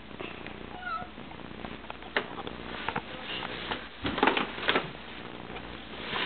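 A cat's short meow about a second in, followed around four seconds in by a brief cluster of rustling and light knocks, the loudest part.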